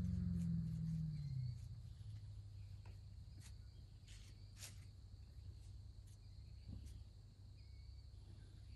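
Faint outdoor ambience: a steady high insect drone, like crickets, over a low rumble, with a few light clicks and rustles. A louder low hum at the start dies away about a second and a half in.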